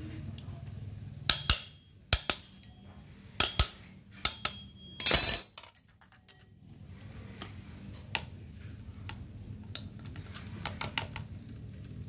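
Metal clinks and knocks as a washing-machine motor stator in its metal end bracket is handled and set down on a tiled floor. Four sharp clinks, some with a short ring, are followed about five seconds in by a louder half-second rattle, then lighter ticks.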